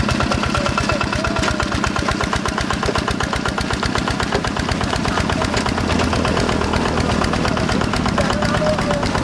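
Single-cylinder Yanmar diesel engine of a Quick G1000 hand tractor running steadily under ploughing load, with a rapid, even firing beat.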